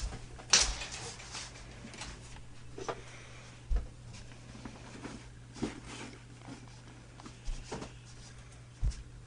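Scattered thumps, knocks and rustles of things being moved about in a cluttered bedroom by someone searching through it, the sharpest knock about half a second in, over a steady low hum.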